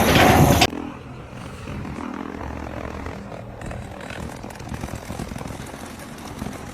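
Loud noise that cuts off suddenly within the first second, followed by a steady engine-like drone.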